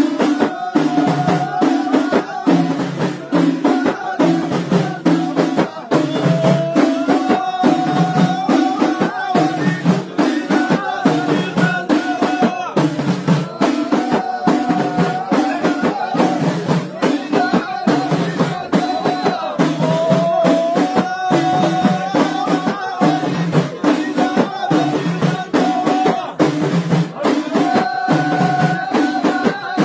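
Ahidous music: a group of men beating bendir frame drums in a steady, fast rhythm while singing a chant together in long held phrases.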